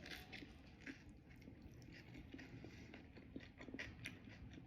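Faint chewing of a hard-boiled egg topped with raw onion, jalapeño and chili crunch: soft, irregular crunches and mouth clicks.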